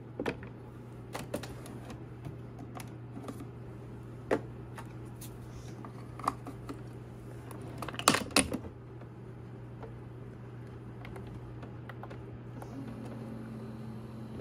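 A mug is set onto a Keurig single-serve coffee maker's drip tray, with small plastic and ceramic clicks and knocks. The brewer's lid is lifted and snapped shut over a pod with a loud clatter about eight seconds in, over a steady low hum. Near the end a low mechanical hum starts up.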